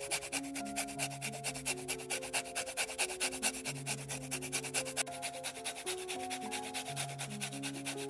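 Lemon peel being grated on a flat stainless-steel hand grater: quick, rhythmic rasping strokes, several a second, with soft background music underneath.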